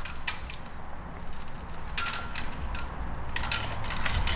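Plastic wiring-harness connectors being handled and pushed into the back of a car stereo head unit: scattered clicks and rattles in small clusters, about two seconds in and again near the end, over a low steady rumble.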